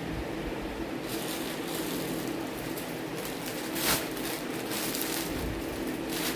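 Rustling and crinkling of a folded cotton saree being handled, with a short sharp rustle about four seconds in, over a steady low hum.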